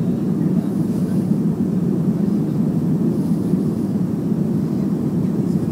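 Steady cabin noise inside a Boeing 737-300 descending on approach to land: the even, low noise of its CFM56-3 jet engines and the airflow over the fuselage.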